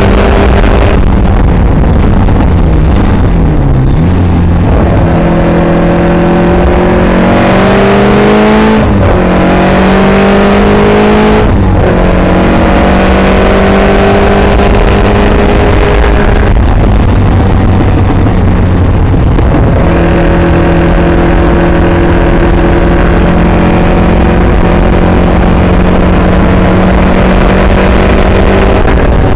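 Caterham Superlight's engine heard from its open cockpit at full-throttle track speed, rising in pitch through the gears with sharp drops at the upshifts a few seconds in, about 9 s and about 12 s in. It eases off for a few seconds past the middle, then runs at a steady high pitch again.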